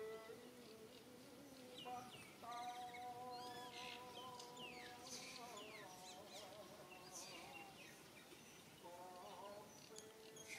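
Faint outdoor ambience: small birds chirping in short falling calls, with a distant voice holding long, wavering notes for a few seconds.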